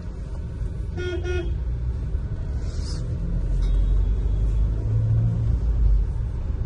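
Steady low rumble of road and engine noise inside a moving Mahindra Scorpio's cabin. About a second in, a vehicle horn toots twice in quick succession.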